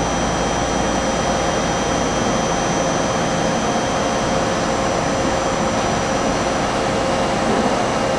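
Okuma & Howa Millac 4VA CNC vertical machining center running its demonstration program: a steady mechanical hum with a few constant whining tones, from the spindle and axis drives.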